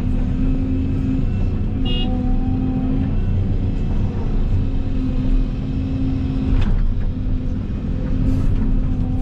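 Excavator diesel engine running steadily under work, with a humming tone that drops out and comes back several times. A brief high chirp sounds about two seconds in.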